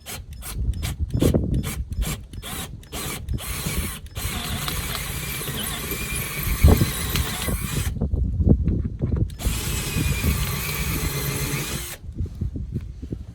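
Power drill with a 1/4-inch bit drilling out an old rivet nut: a quick series of short trigger bursts over the first three seconds or so, then two longer steady runs of about four and three seconds with a short pause between, with knocking underneath.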